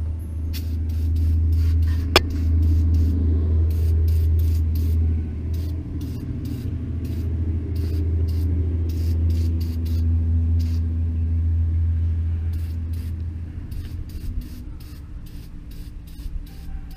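Aerosol can of engine degreaser sprayed in many short bursts, each a brief hiss, over a steady low rumble.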